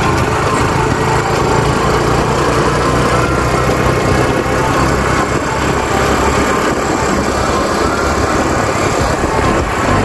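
Yamaha YBR 125's small single-cylinder four-stroke engine running steadily as the motorcycle rides along, heard from on board.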